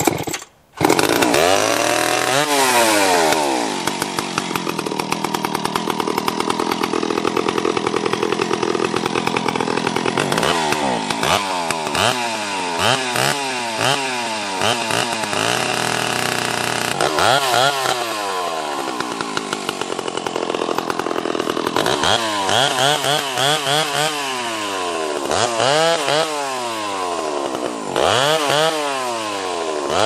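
Freshly ported Stihl 031 AV two-stroke chainsaw running and revved up and down again and again, with a steadier stretch at lower speed from about four to ten seconds in.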